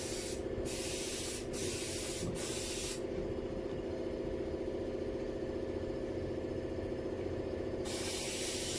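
A steady mechanical hum under a hiss. The hiss breaks off briefly a few times, drops out about three seconds in and returns near the end.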